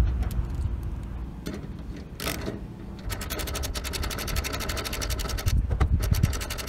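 A tool tightening the bolt of a solar panel end clamp on its mounting rail: a fast, even clicking, about fifteen a second, starting about three seconds in and lasting some two and a half seconds, with scattered clicks and a brief scrape around it.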